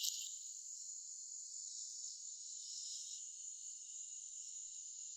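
Steady, faint, high-pitched insect chorus.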